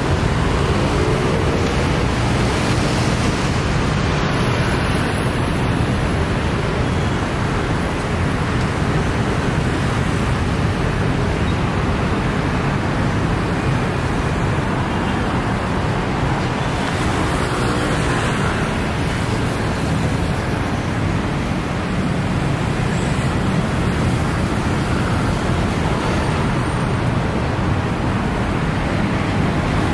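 Steady traffic noise from a busy city road, with cars and buses passing.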